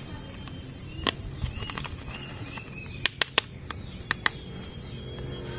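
A steady high-pitched buzz in the background, with several sharp clicks and taps, a quick group of them about three seconds in, as plastic toys are handled.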